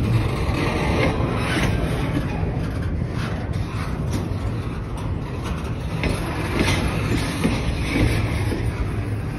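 Double-stack intermodal well cars rolling past: a steady rumble of steel wheels on rail, with scattered clanks and rattles from the cars and their couplings.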